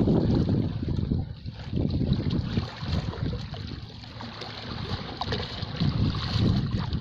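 Sea waves washing on the shore, with wind buffeting the microphone; the rushing noise swells and eases several times.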